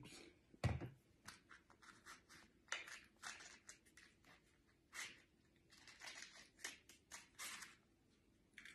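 Faint handling noise: light scratches, rustles and clicks of small objects being fiddled with by hand on a countertop, with a soft knock a little under a second in.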